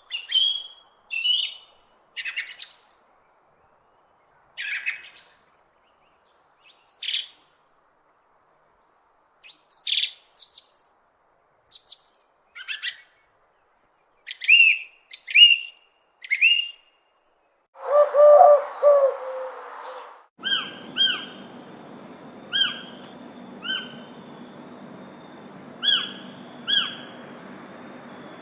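Wild birds chirping and singing, with short separate chirps and trills in a varied sequence. About two-thirds of the way in there is a lower call, then a steady hiss sets in under a short chirp that repeats every second or two.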